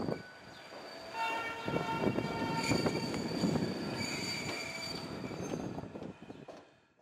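A train in a rail yard: rumbling running noise, joined about a second in by a cluster of steady high tones that last several seconds before everything fades out near the end.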